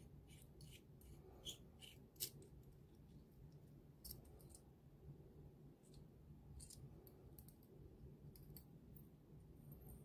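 Faint, scattered light clicks and ticks of an anodized aluminium bolt-action pen being handled and unscrewed, its metal parts knocking together. The clicks come thickest in the first couple of seconds, the sharpest about two seconds in, over a steady faint low hum.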